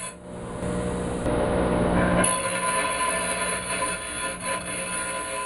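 Somar bench grinder running, its wheel grinding the cut end of a steel M10 threaded rod: a rough grinding noise over the motor's steady hum, loudest about one to two seconds in, then easing off.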